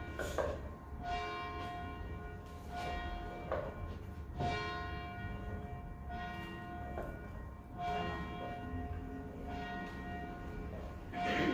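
Church tower bells ringing: a series of strikes at uneven intervals, about one to three seconds apart, each left to ring on in a long hum that overlaps the next. The loudest strike comes near the end.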